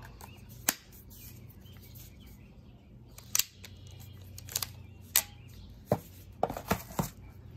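Sharp clicks and light knocks from handling a Barra 1858 Cowboy Series CO2 BB revolver as it is turned over and lowered back into its box. There are about ten, with several close together near the end.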